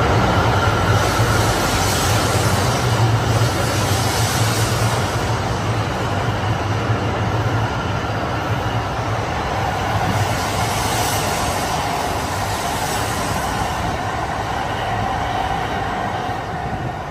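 Shinkansen bullet train passing through a station platform without stopping. A steady running rumble with a held whine, slowly fading.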